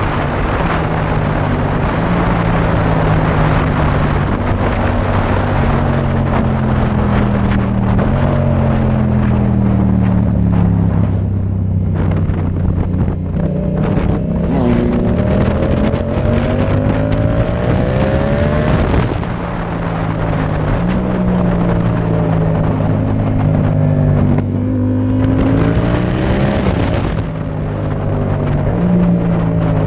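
Yamaha MT-07 parallel-twin engine running through a Mivv Delta Race aftermarket exhaust while riding. The engine note rises under throttle, falls off, and changes pitch suddenly several times as gears are shifted, with wind noise on the microphone.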